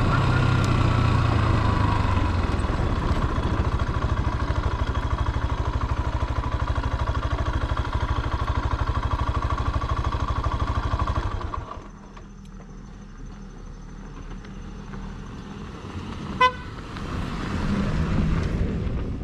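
Motorcycle engine running with a steady low pulse, which drops away sharply about twelve seconds in. Near the end there is one short horn toot, followed by the sound of a vehicle building up.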